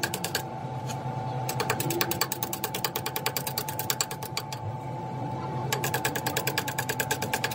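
Lathe turning a welded truck countershaft slowly, its gearing giving a steady hum with rapid, evenly spaced clicking, about ten clicks a second, that stops and starts in spells.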